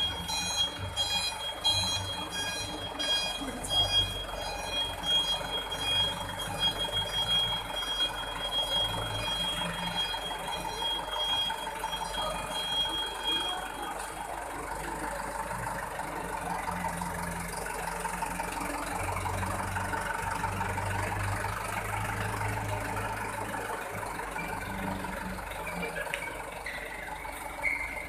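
A truck's electronic reversing beeper sounding a fast run of high repeated beeps over a low engine rumble. About halfway through the beeping stops and only the engine and background rumble go on.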